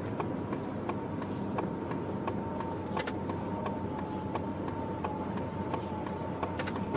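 Faint vehicle noise: a steady low hum with a thin steady whine and scattered light clicks.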